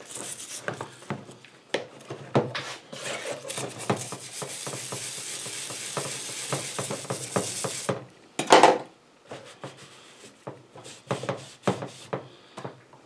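Wet scrubbing of a small lawn mower engine's cylinder head with a metal-bristled brush in a tub of degreaser: rapid scratchy brush strokes for about eight seconds. A louder knock comes about eight and a half seconds in, then lighter scrapes and taps.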